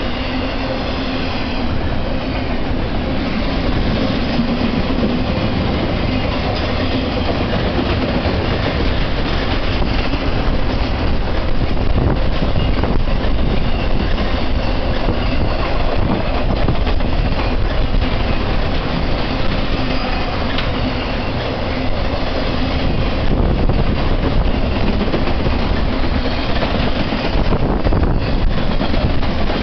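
BNSF intermodal freight train's flatcars carrying truck trailers rolling past close by: a steady, unbroken rumble of steel wheels on the rails.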